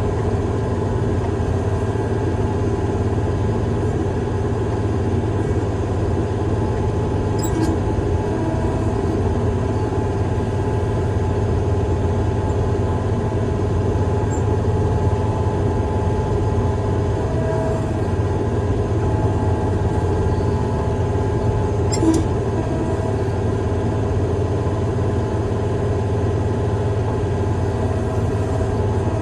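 Heavy-equipment diesel engine running steadily at a constant speed, with two brief clicks.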